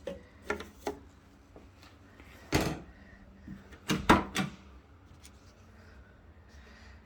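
Door on a Holden VH Commodore body being handled and shut. There are a few light clicks, a heavier clunk about two and a half seconds in, then a quick cluster of clunks about four seconds in, the loudest of them. The door is badly aligned and leaves a big gap.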